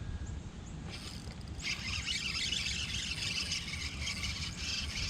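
Fishing reel being cranked, a steady fine whirring as a spinnerbait is retrieved, starting about a second and a half in, over a low rumble of wind on the microphone.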